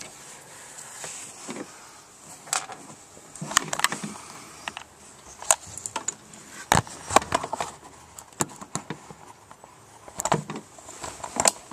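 Scattered light clicks, taps and rattles of hands and a tool working in a car's engine bay, undoing a wire tie that holds the brake vacuum pipe to the throttle cable. A few sharper clicks come near the middle.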